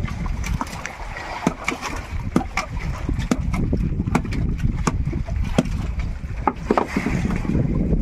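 A fishing boat at sea: a steady low rumble with many irregular knocks and clicks on board, and wind on the microphone.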